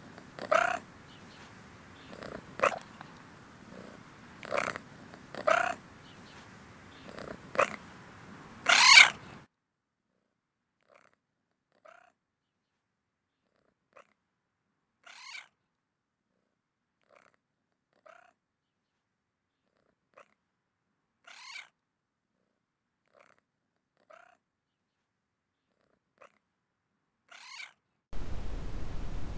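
Seal-point Siamese cat giving short meows while being stroked, one every second or two, the loudest about nine seconds in. After that the calls come fainter and further apart.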